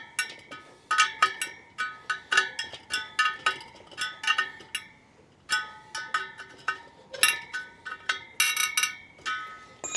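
Spoke wrench clinking against a motorbike wheel's steel spokes as they are tightened to true the wheel: a quick, irregular run of ringing metallic pings, two to three a second, with a short pause about halfway.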